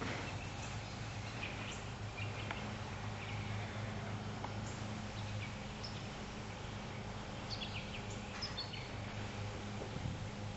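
Outdoor ambience of scattered short bird chirps, with a few together about eight seconds in, over a steady low hum.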